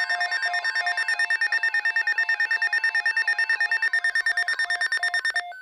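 Electronic emergency alert tone: a rapid, pulsing, multi-tone beeping at about a dozen pulses a second over a steady higher tone. It stops near the end and gives way to a few separate short beeps. It signals the start of an incoming weather alert broadcast.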